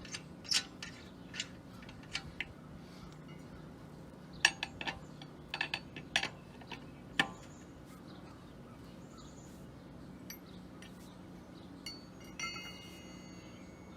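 Scattered sharp metallic clicks and clinks of a lug wrench working lug nuts off a wheel, then a single ringing metal clink near the end.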